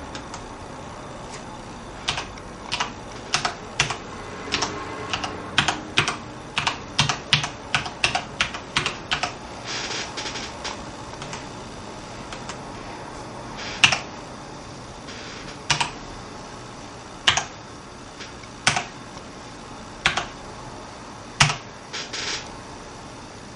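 Key clicks on a Corsair Strafe mechanical gaming keyboard. A quick run of keystrokes, two or three a second, starts about two seconds in and ends with a dense flurry near the middle. After that come single sharp key presses about every second and a half.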